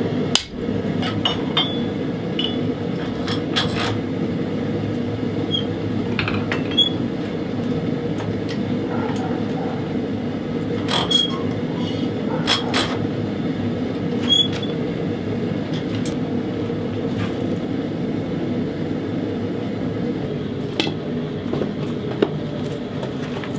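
Propane forge burner running with a steady rush, under a handful of ringing hammer strikes on hot steel at the anvil, spaced a second to several seconds apart, as the maker's mark is struck into the Bowie blade and the blade is straightened.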